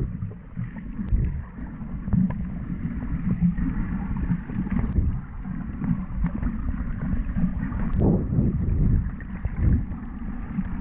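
Muffled underwater sound heard through a camera's housing: a low, uneven rumble of water moving against the housing as the diver swims, with a few louder surges.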